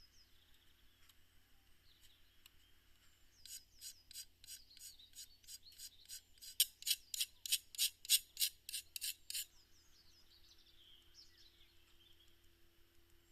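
A small miniature part being abraded by hand with a file or sandpaper: rhythmic back-and-forth rasping strokes, about three a second, starting a few seconds in, growing louder, and stopping after about six seconds.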